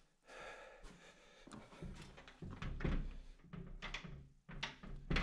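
Several knocks and thunks, about six or seven spread over the last three seconds, as an interior door is handled and swung open.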